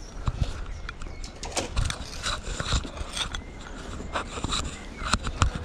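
Close rustling, scraping and irregular clicks and knocks from ropes, harness and clothing rubbing against a body-worn camera as its wearer edges along a steel-cable rope walk.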